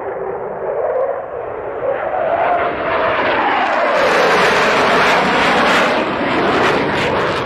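Military combat aircraft flying past, a rushing roar that swells to its loudest about halfway through, its tone sweeping up and down.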